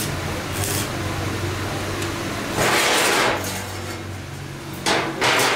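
Stick (arc) welding on a square-tube steel frame: the arc crackles and sputters steadily, louder for under a second in the middle and in two short bursts near the end. A steady low hum runs underneath.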